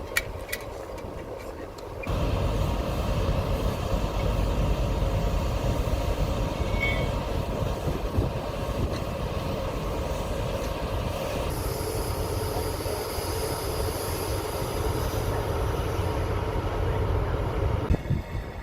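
Train running on the rails: a steady low rumble that starts suddenly about two seconds in, with a higher hiss joining about halfway through.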